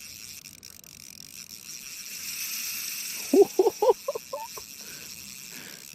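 Spinning reel's front drag screaming as a hooked rainbow trout pulls line off, building over the first couple of seconds and holding. About three seconds in, a quick string of short voice-like sounds.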